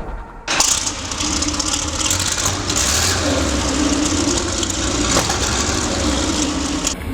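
Tiger II tank's Maybach V12 petrol engine running steadily with a low rumble and drone, coming in suddenly about half a second in.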